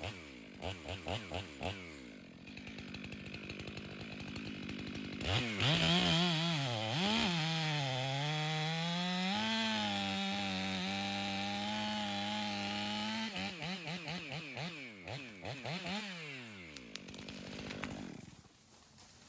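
Ported Stihl 500i two-stroke chainsaw blipping its throttle. About five seconds in it goes to full throttle and cuts into a maple trunk for about eight seconds, its pitch dipping under load. It then eases off with a few more blips and winds down near the end.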